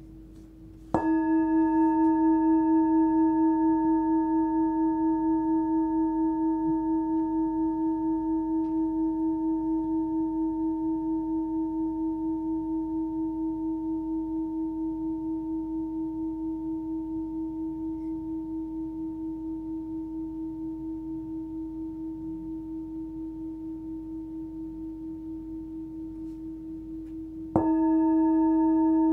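Hand-hammered Full Moon singing bowl, 14.3 cm, pitched at about 320 Hz (between D-sharp and E), struck once with a mallet about a second in. It rings with a strong fundamental and several higher overtones, wavering in a steady pulse as it slowly fades. It is struck again near the end.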